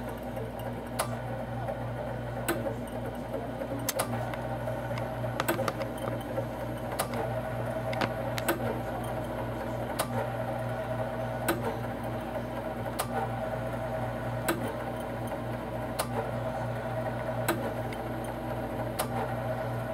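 The small electric motor of an LCD screen-separation machine running steadily as it winds in the cutting wire that slices the touch-screen glass off the LCD. A sharp click comes about every second and a half.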